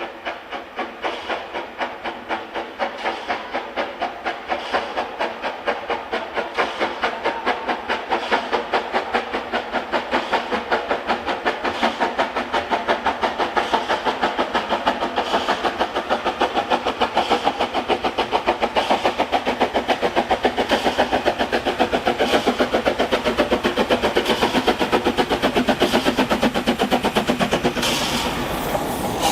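Henschel steam locomotive working hard, its exhaust chuffing in an even beat that grows louder and quickens as the train gathers speed.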